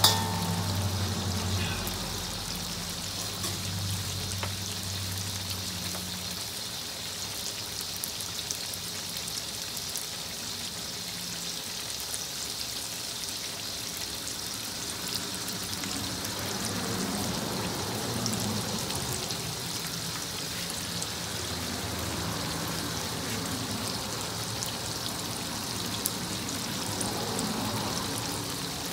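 Chopped onion, shallots, chilies and tomatoes frying in hot oil in a wok: a steady sizzle with many small crackling pops. A metal slotted spoon clacks once against the wok at the very start.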